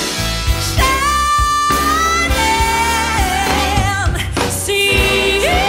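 Background music: a song with long held notes over a full band accompaniment.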